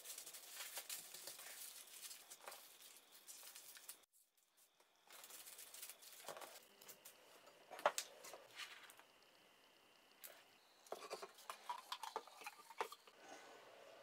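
Faint crinkling and rustling of aluminium foil being folded around packets by hand, with scattered light taps and clicks on the tabletop. It breaks off briefly about four seconds in.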